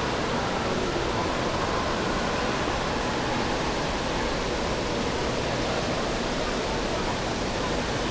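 Steady wash of rushing and splashing water filling an indoor water park.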